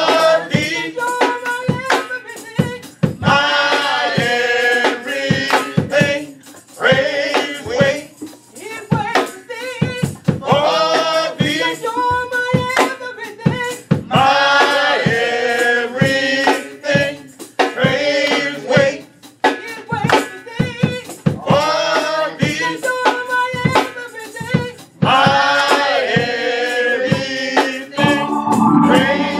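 Gospel group of men and women singing in harmony, with hand clapping keeping a steady beat. A held organ chord comes in near the end.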